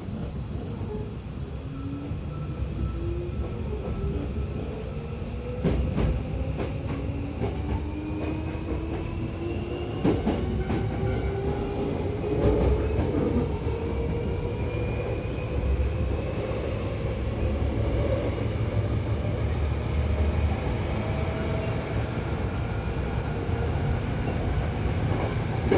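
Hankyu 8000-series electric train accelerating. The traction motor whine rises steadily in pitch over a low running rumble, with a few clacks of the wheels over rail joints.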